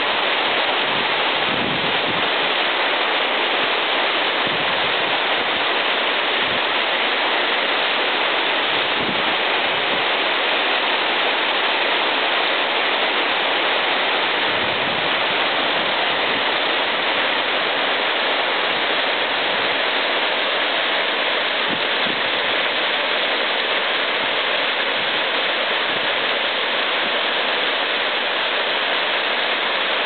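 Waterfall: water falling in a steady, unbroken rush.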